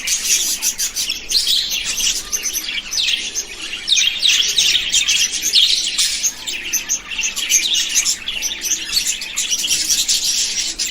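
Budgerigars chirping and warbling continuously, many short high chirps overlapping as from a group of budgies.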